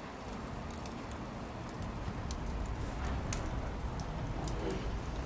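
A pot of lamb cooking on the heat: faint irregular crackles and small pops over a low, steady rumble.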